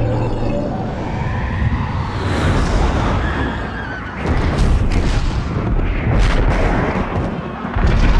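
Film sound-effects mix: a deep, steady rumble with rushing noise, then from about four seconds in a string of sharp booms and cracks from explosions and gunfire.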